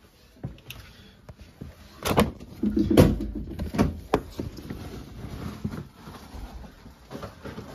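A door and a plastic storage bin being opened to get at dog kibble: a few sharp knocks and clatters about two to four seconds in, the loudest near three seconds, then lighter handling noise.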